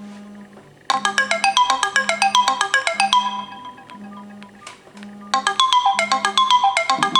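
Mobile phone alarm ringing: a quick marimba-like melody plays in two phrases, starting about a second in and again about five seconds in. Under it, the phone's vibration motor buzzes low in short pulses.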